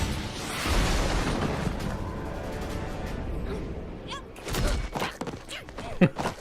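Sound effects from an animated action scene: a rushing whoosh of a character's super-speed dash under music, then a few sharp hits near the end.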